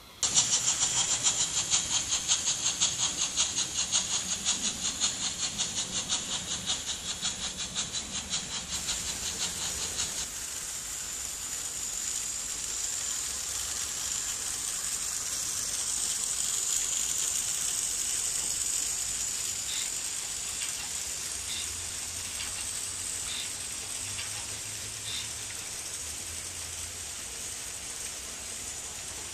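Märklin H0 model steam locomotive's sound unit chuffing at a fast, even beat of about four chuffs a second. After about ten seconds the chuffs stop and a steady steam hiss remains, over the faint rolling of the model hopper wagons on the track.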